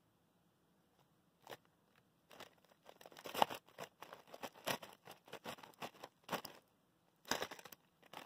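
Irregular rustling and crinkling, a run of short scratchy sounds from about a second and a half in, like soft material or plastic being handled, with a brief pause near the end.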